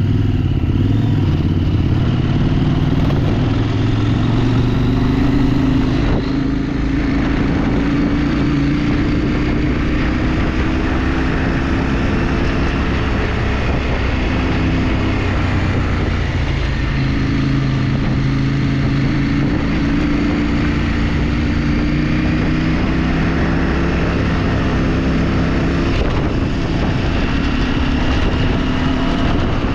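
Motorcycle engine running while riding, its pitch rising and falling as the throttle and speed change, with a brief dip about six seconds in.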